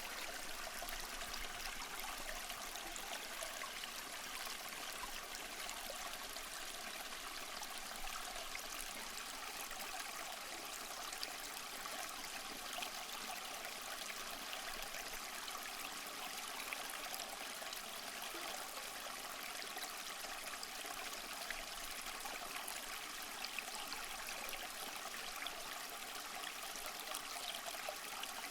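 A stream flowing steadily over stones, a continuous rushing and trickling of water with small splashes.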